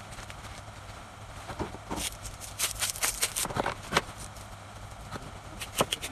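Crackling and clicking of a fresh-flower bouquet and its wrapping being handled on a work table, in a quick flurry from about two to four seconds in and again near the end, over a steady low hum.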